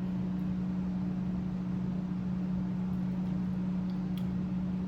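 A steady low hum with a fainter higher tone above it, unchanging throughout, with a faint tick or two.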